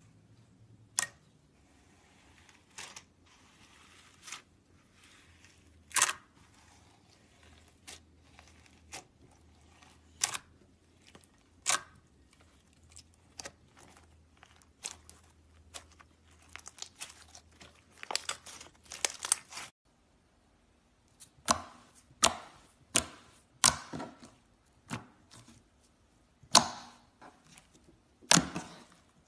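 Slime being squeezed and pressed by hand, giving sharp, irregular pops and crackles about once a second, coming in quick clusters before a short silent break about twenty seconds in, then louder single pops again.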